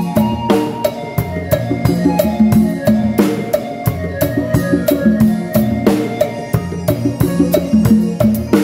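Drum kit played live with a band: a dense, driving beat of kick, snare and cymbal hits over a bass line and other pitched instruments.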